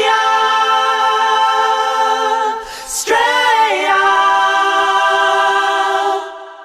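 Background music: a cappella voices singing two long held chords, with a short break in between, fading out near the end.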